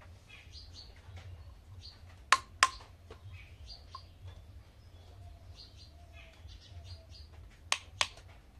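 Plastic toy kitchen pieces set down on a hard surface: two pairs of sharp plastic clacks, one pair about two seconds in and another near the end. Birds chirp faintly in the background throughout.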